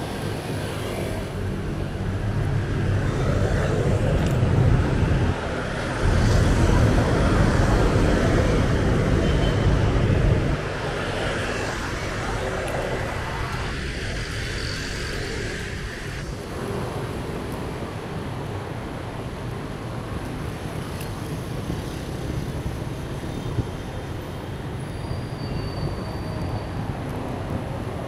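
Motor traffic on a busy multi-lane road passing close by, a steady noise that is loudest and deepest from about two to ten seconds in, then settles lower.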